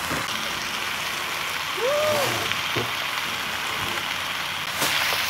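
Food sizzling steadily in a frying pan, with a short rising-and-falling tone about two seconds in; the sizzle gets louder near the end.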